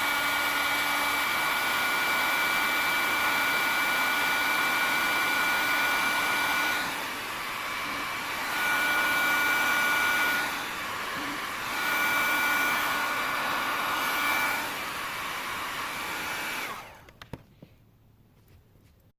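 Electric heat gun blowing steadily with a motor whine, heating a solder-seal connector to melt its solder ring and shrink its tubing. The sound dips briefly three times, and the gun switches off about 17 seconds in.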